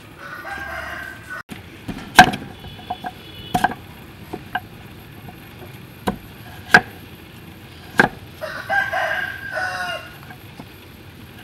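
A steel cleaver chopping a hard lump of brown sugar on a wooden chopping board: single sharp chops, a second or more apart. A rooster crows twice, once at the start and again about three-quarters of the way through.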